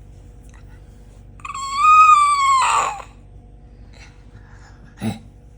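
A young child's high-pitched squeal, held for just over a second about one and a half seconds in and trailing off breathily, over a steady low hum. A brief vocal sound follows near the end.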